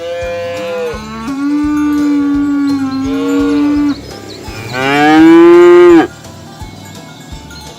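Cattle mooing: a long, low moo lasting about four seconds, then a second, louder moo from about five seconds in that stops abruptly.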